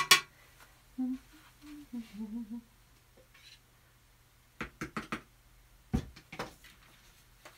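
Clicks and knocks of paint containers being handled, picked up and set down, with the loudest knock about six seconds in. A woman hums softly for a moment between about one and three seconds in.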